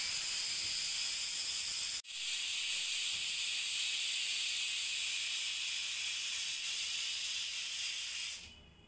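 Stovetop pressure cooker whistling: steam hissing out steadily past the weight valve, the sign that full pressure has built up inside. The hiss breaks off briefly about two seconds in, then runs on and fades out near the end.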